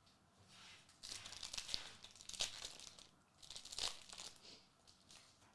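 An Upper Deck DC Annual trading card pack wrapper being torn open and crinkled, in several rustling bursts with a few sharp crackles.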